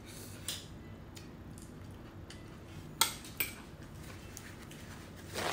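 Metal chopsticks clinking against a glass dish: a faint click early, then two sharp clinks about three seconds in. A short scuffing sound follows near the end.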